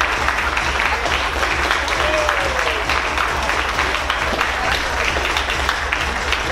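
Theatre audience applauding steadily, many hands clapping at once, with a short falling call from a voice in the crowd about two seconds in.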